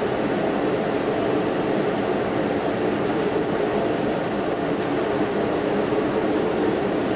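A steady low rumbling hum with no distinct events, with two brief faint high-pitched whistles about halfway through.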